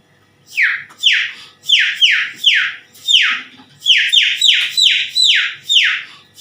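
A mimic's voice imitating chicks peeping: a quick run of about a dozen short, high peeps, each falling in pitch, about two a second, starting half a second in.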